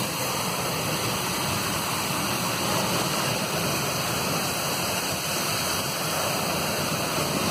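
Firefighting hose nozzle spraying water in a wide fog cone, a steady rushing hiss.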